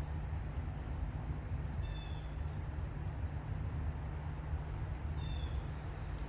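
Steady low outdoor rumble, with a bird giving two short, high chirps about three seconds apart.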